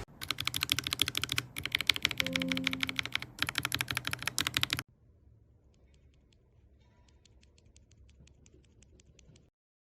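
Fast typing on a mechanical keyboard with Akko CS switches: a dense clatter of keystrokes in three quick bursts for about five seconds. It then drops suddenly to much fainter typing that stops near the end.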